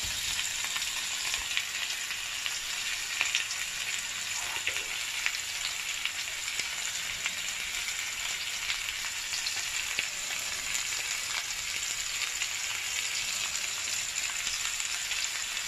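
Two T-bone steaks sizzling steadily on a hot ridged grill pan, one lying flat and one stood up on its edge, with small scattered crackles and spits of fat through the hiss.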